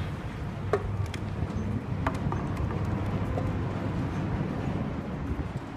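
Steady low mechanical hum from the machinery of a large moored cargo ship, with a few faint clicks over it.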